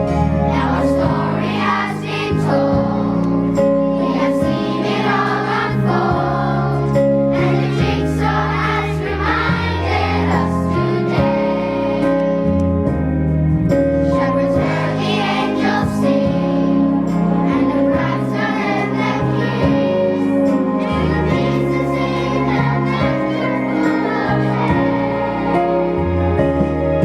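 A group of children singing a song together as a choir, with instrumental accompaniment of held chords and a moving bass line.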